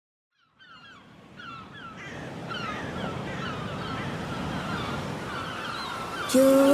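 Ocean surf with gulls calling over it, fading in from silence with many short, quick cries. Near the end, music begins with sustained notes.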